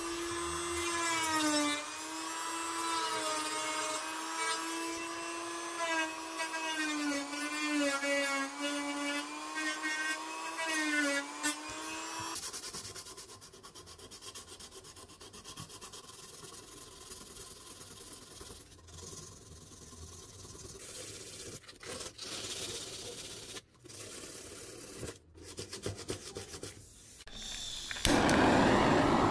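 A small high-speed power tool whining, its pitch dipping and wavering as it is pressed into the work, for about the first twelve seconds. Then come quieter rubbing and scraping sounds. About a second before the end, a loud rushing hiss starts.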